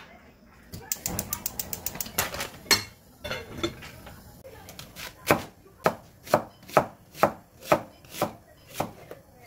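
Knife slicing an onion on a wooden cutting board, steady cuts about two a second in the second half. Before it comes a quick run of rapid clicks from a gas stove burner igniter, then a single knock as the lid goes onto the cast iron pot.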